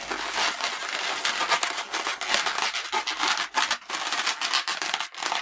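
Inflated latex 260 modelling balloons rubbing and creaking against each other and against the hands as they are squeezed and pushed together, in a dense, irregular run of rubbing noises.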